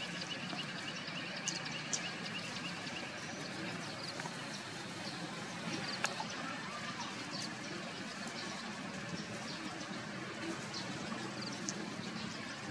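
Steady outdoor background noise with scattered faint ticks, and a brief rapid chirping in the first few seconds.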